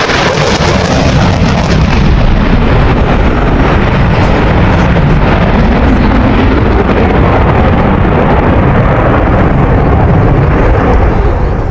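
Dassault Rafale C's twin Snecma M88 turbofans running in afterburner: a loud, continuous jet roar that loses its high hiss after a couple of seconds as the jet climbs away.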